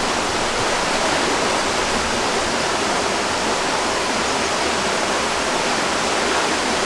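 Steady rushing water, an even hiss that doesn't change.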